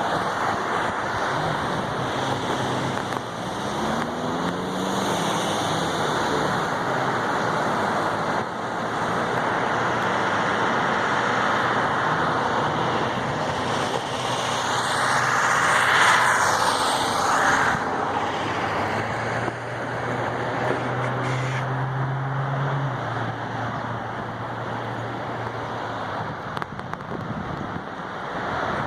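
Steady outdoor rushing noise with car and road-traffic sounds. A louder rush swells and fades about halfway through, and a low engine-like hum holds for a few seconds a little after two-thirds of the way in.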